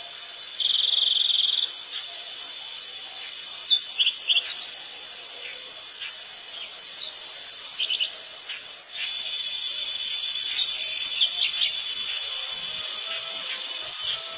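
Dense, shrill chorus of forest insects trilling steadily, with a few short chirps on top. About nine seconds in it dips briefly and comes back louder with a faster pulsing.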